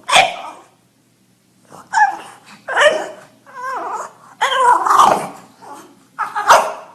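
A dog vocalizing in a string of about six short calls, barks and whining growls, with a longer wavering call about halfway through.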